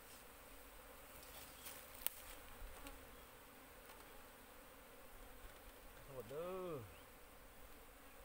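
Asian honey bees (Apis cerana) buzzing faintly around their hive box, with a few light clicks of the lid being handled. A little past six seconds in, one bee flies close past, its buzz rising then falling in pitch over about a second.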